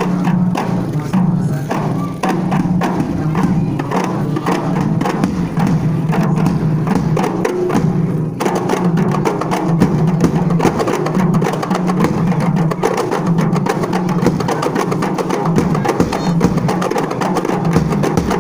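A group of frame drums, hand-held drums and a large one, beaten with padded beaters in a fast, steady rhythm. The sound grows fuller about eight seconds in.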